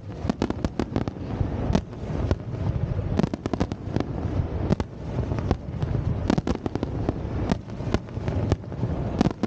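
Aerial fireworks shells bursting: a continuous run of sharp bangs and crackles, bunched in quick clusters, over a steady low rumble.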